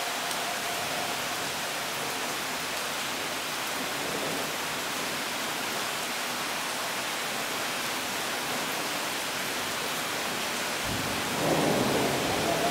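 Heavy summer rain pouring down in a steady hiss. Near the end a low rumble of thunder comes in over it and the whole sound grows louder.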